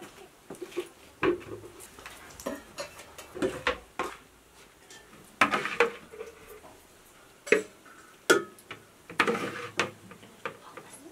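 A metal ladle stirring and scraping in a plastic bucket, with irregular short knocks and clinks of the ladle and containers.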